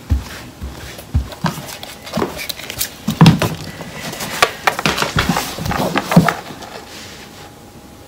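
Hollow knocks of homemade milk-carton stilts stepping on a runner over a wooden floor, followed by a denser run of irregular knocks, thumps and rustling close to the microphone.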